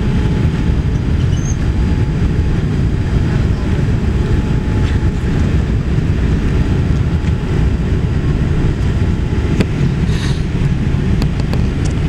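Steady low rumble of a Boeing 787-8's engines and rushing airflow, heard inside the cabin as the airliner climbs after takeoff.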